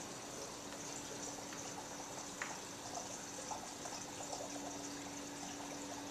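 Water in a reef aquarium trickling and splashing steadily, with small drips and a faint steady hum underneath.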